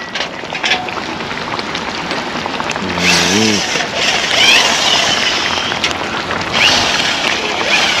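Whole snapper and parrot fish sizzling steadily in sauce in a frying pan, under a steady hum of vehicle noise. A brief voice sounds about three seconds in.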